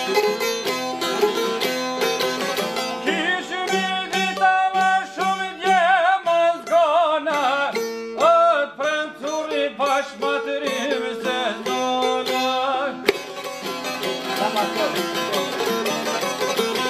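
Two long-necked Albanian folk lutes playing fast, with a male voice singing a wavering, ornamented line from about three seconds in until about twelve seconds, then the lutes carrying on alone.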